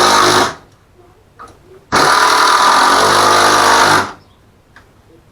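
Power drill run twice in short bursts of about two seconds, starting and stopping sharply on the trigger.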